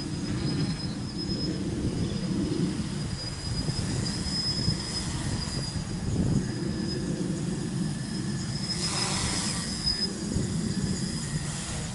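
Tricopter's three 2216 900 kV brushless motors and 8x4.5 carbon-fibre propellers running steadily in flight, a continuous buzzing drone, with a brief rushing swell about nine seconds in.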